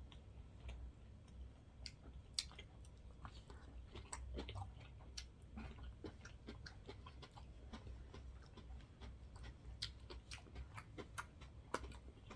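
Quiet chewing and mouth sounds of people eating sushi, with many small irregular clicks and ticks throughout.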